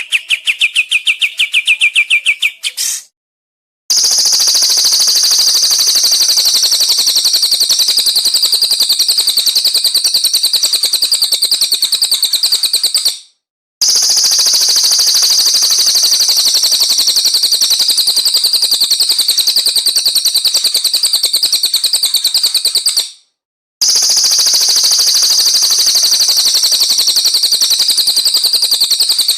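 Songbird 'tembakan' song: a very fast, high, unbroken trill, repeated in near-identical stretches of about nine seconds with short silent breaks between. A lower trill plays for the first few seconds before the first break.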